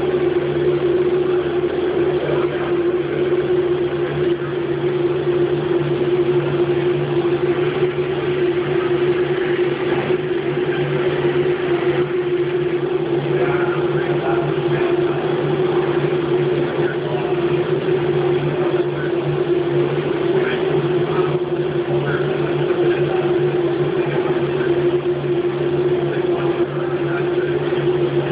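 Haas CNC machine running steadily through a cut: a constant machine hum with a steady mid-pitched whine over a rushing hiss, with no pauses or changes.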